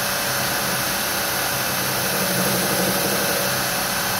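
Belt grinder running steadily at about 4,100 RPM with a 120-grit zirconia belt, a steel knife blade held against it and ground in passes to take off black scale.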